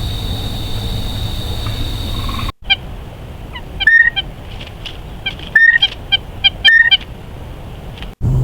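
Bird calls: a series of short pitched calls spread over about five seconds, three of them loudest and a little over a second apart. They follow a steady hiss with a high whine that stops suddenly.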